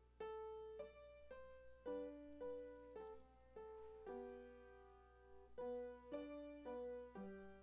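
Slow solo piano piece: single notes and chords struck about every half second and left to ring and fade, with a lower part joining about two seconds in.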